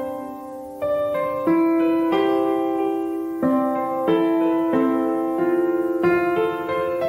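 Background music: gentle piano, a new chord or note struck every half second to a second and left to ring.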